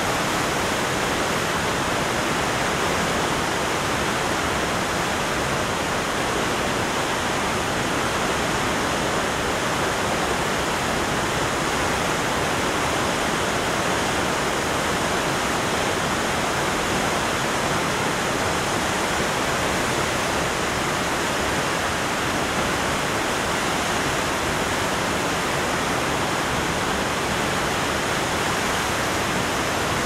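Huka Falls: a large volume of river water thundering over the falls and churning in the pool below, a steady, unbroken rush.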